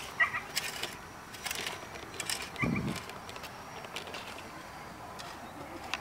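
A hoe blade chopping and scraping into dry, compacted dirt a few times as a planting hole is dug, the first stroke the loudest, with a duller thud near the middle. Short high chirps sound near the start and again around two seconds in.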